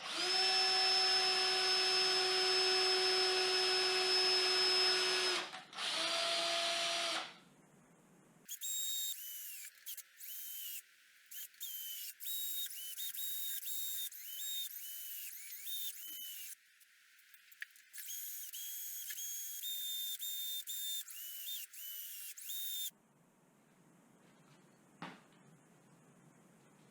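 Power drill running: a steady whine for about five seconds, then a shorter run, then many short start-stop bursts whose pitch rises as each one starts, sounding thin and high. Quiet for the last few seconds.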